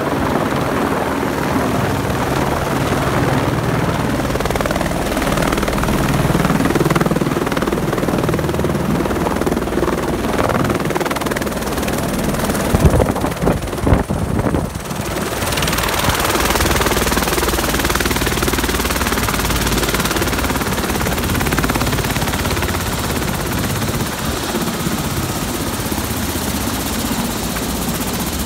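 Helicopter running on the ground with its rotors turning, a steady loud drone of rotor and turbine. A few loud thumps come about halfway through.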